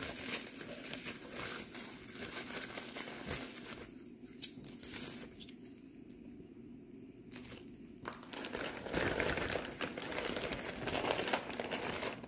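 Packing material crinkling and rustling as it is handled and worked open, with a quieter stretch in the middle, one sharp click about four and a half seconds in, and louder crinkling near the end.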